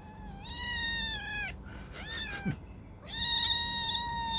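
Cat meowing: two long, drawn-out meows with a short one between them.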